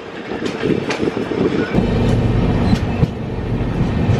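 Passenger train in motion: the steady rumble and rattle of the coach running on the rails, with scattered clicks. The low rumble grows heavier about two seconds in.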